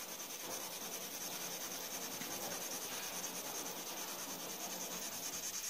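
Pencil scratching on paper in quick, steady back-and-forth shading strokes, laying down a layer of tone.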